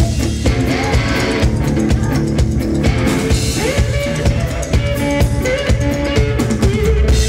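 Live rock band: electric guitar playing a riff with bent notes over a steady drum-kit beat.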